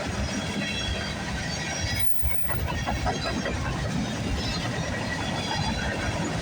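Freight train cars rolling past on steel rails: a steady rumble of wheels, with faint high wheel squeal. There is a brief drop in the sound about two seconds in.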